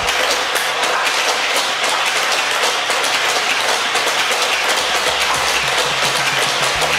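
Hot Wheels Corkscrew Crash track's battery-powered boosters whirring steadily while die-cast toy cars rattle and click along the plastic track and loops.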